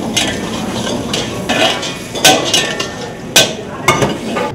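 A metal ladle stirring palak paneer gravy in a large metal kadai, knocking and scraping against the pan in a series of sharp clinks, over a steady hiss.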